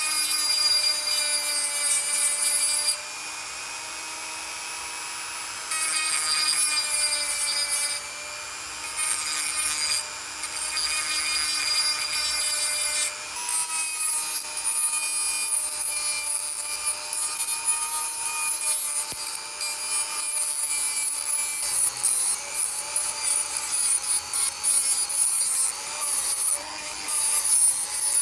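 Abrasive rubbing on rusty metal in irregular stretches of scraping, quieter for a couple of seconds early on, over a steady pitched hum.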